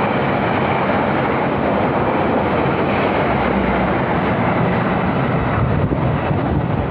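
Train hauled by a CC 206 diesel-electric locomotive passing close by: a loud, steady rush of wheels on the rails over a low rumble, with no break or change.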